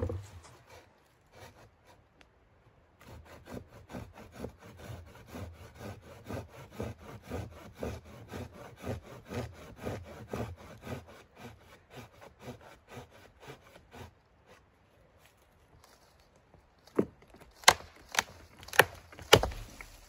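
Hand saw cutting through a dry dead branch with steady back-and-forth strokes, about two or three a second, for roughly ten seconds. Near the end come several loud sharp cracks of wood snapping.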